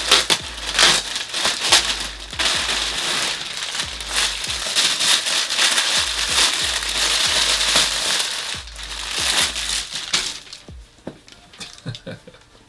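Plastic mailer bag and clear poly bag crinkling and rustling as they are handled and opened by hand. The crinkling dies down about ten seconds in, leaving a few light rustles.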